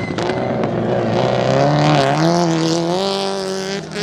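Rally car engine running at high revs through a corner, its pitch climbing in steps in the second half and dropping briefly near the end.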